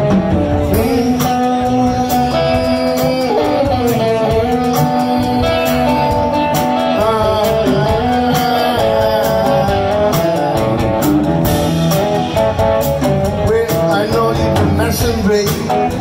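Live blues band with an amplified blues harmonica, cupped against a vocal microphone, taking a solo of long held and bent notes over electric guitar, upright bass and drums.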